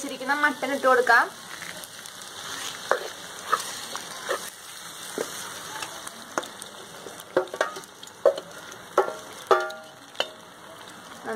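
A wooden spoon scrapes wet, marinated mutton pieces out of a steel pot into a clay pot. Irregular wet slaps, scrapes and sharp clinks of the spoon against the pot rims, about a dozen of them, over a low hiss.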